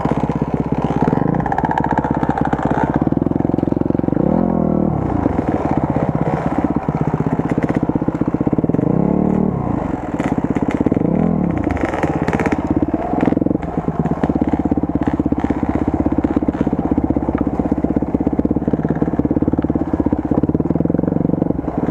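Enduro motorcycle engine running at low revs, with the revs rising and falling briefly a few times, about four, nine and eleven seconds in.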